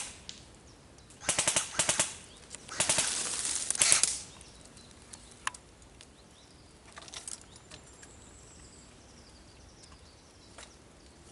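Airsoft guns firing on full-auto: two short bursts of rapid, evenly spaced clattering shots, then a longer burst of about a second. After that only a few faint single clicks.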